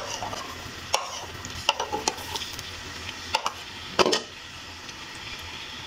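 Steel ladle stirring chopped onions in hot oil in a metal kadhai, knocking and scraping against the pan several times, loudest about four seconds in, over a faint steady sizzle of the frying onions.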